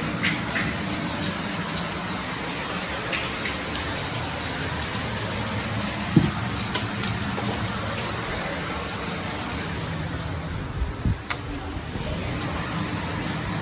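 Shower water running steadily. There is a single thump about six seconds in and a few knocks around eleven seconds.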